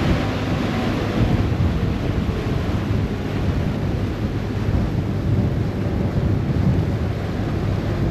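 Steady low rumble of wind buffeting the microphone, mixed with water rushing and churning in the wake of a moving harbour ferry.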